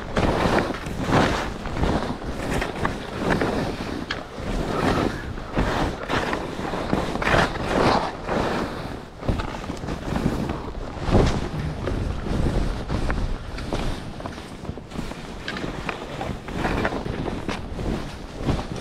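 Backcountry skis sliding and turning on snow on a downhill run: a string of swooshing scrapes that swell and fade every second or so, with wind rushing over the microphone.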